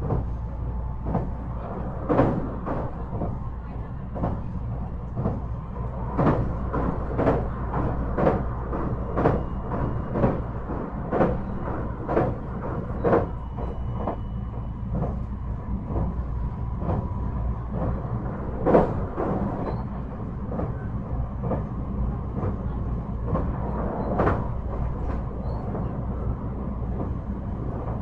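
A JR 223-5000 series electric train running at speed, heard from inside the car. A steady rumble from the running gear carries the wheels' clicks over the rail joints at about one a second. A faint steady whine runs underneath.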